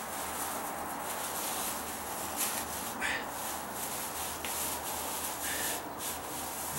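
Thin plastic bag crinkling and rustling as it is handled around a paint roller cover wet with roof coating, in a string of short irregular crackles.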